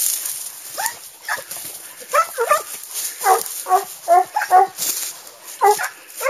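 A dog yelping and whining in short pitched cries, about a dozen of them in quick runs, some falling in pitch.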